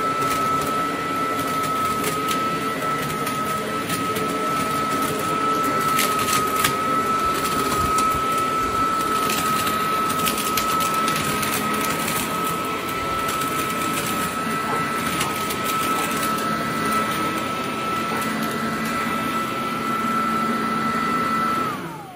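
Parkside PLS 2600 B2 electric leaf blower/vacuum running at full speed: a steady high motor whine over rushing air. Near the end it is switched off, and the whine falls away as the motor winds down.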